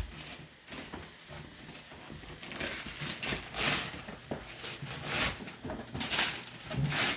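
Wrapping paper rustling and tearing in repeated bursts as a present is unwrapped.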